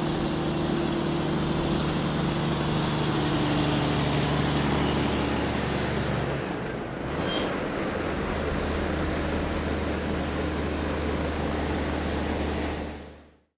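Diesel engine of a heavy crane-equipped low loader truck running as the truck pulls away, its note shifting about six and a half seconds in. The sound fades out near the end.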